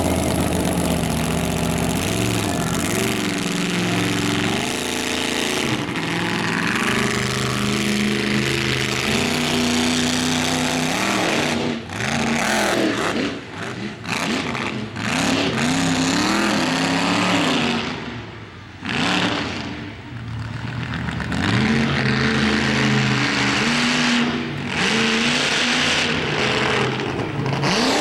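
Monster truck engine revving hard and easing off over and over, its pitch rising and falling with the throttle. The engine sound drops away briefly twice in the middle before picking up again.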